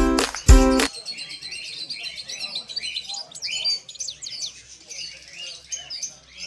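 A chorus of many small cage birds chirping and twittering together, dense quick calls overlapping with one another. A music track ends with a last beat just under a second in.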